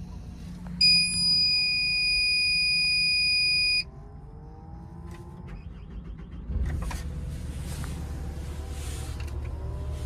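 A Caterpillar 308 CR excavator being started from the cab. A steady electronic warning buzzer sounds for about three seconds, then the diesel engine starts about six and a half seconds in and runs at a low, steady idle.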